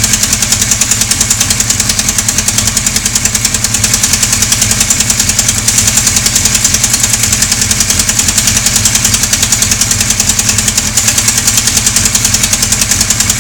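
Car engine idling steadily with a loud, fast, regular ticking or knocking, about ten ticks a second, an unusual noise from the engine.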